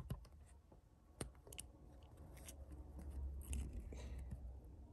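Small handling sounds: a few sharp little clicks and rubbing as fingers work a silicone ear tip and an AirPods Pro earbud, with low rumbling handling noise on the microphone that grows louder a little past the middle.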